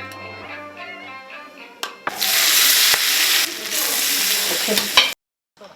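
Hot oil poured over chili on a bowl of biangbiang noodles, sizzling loudly for about three seconds and then cutting off suddenly.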